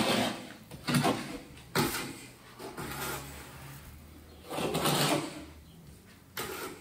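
Steel margin trowel scraping and spreading thinset cement on a shower wall, in about six separate strokes, one of them longer near the middle.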